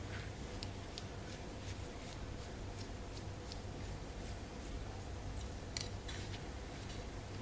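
Faint light clicking of small screws being driven by hand into an RC helicopter's frame and main bearing block, a few small ticks a second with one sharper click near the end.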